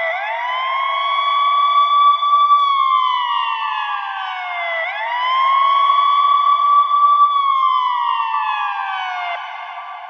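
Ambulance siren sounding a slow wail: the pitch sweeps quickly up, holds, then slides slowly down, about once every five seconds. Near the end it jumps back up and fades away.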